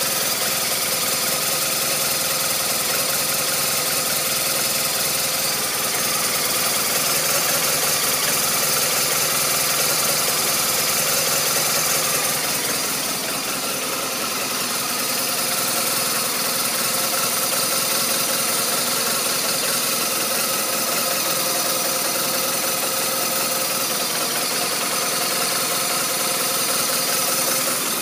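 BMW R1200RT motorcycle's boxer-twin engine idling steadily with a rough, uneven idle.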